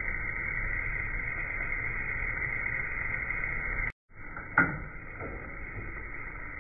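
Airport luggage-wrapping machine turning a carton on its turntable while plastic stretch film unwinds onto it: a steady whirring hiss. It breaks off briefly about four seconds in, then resumes with one sharp knock.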